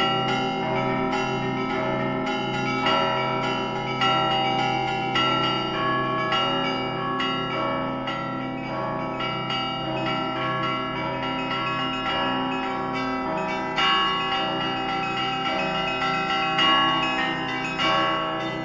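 Russian Orthodox church bells rung by hand in a continuous, dense peal: small high bells struck rapidly over the repeated strokes of larger, lower bells, all ringing on together.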